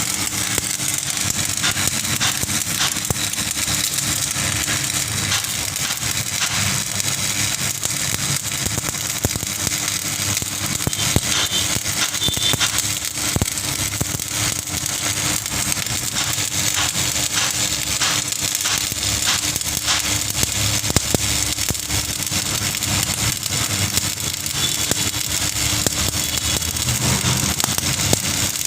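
Electric arc welding: the arc crackling and sputtering steadily, with a constant hum underneath.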